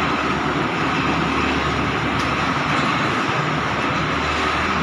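Swaraj 8100 combine harvester's diesel engine running steadily as the machine reverses with its header raised.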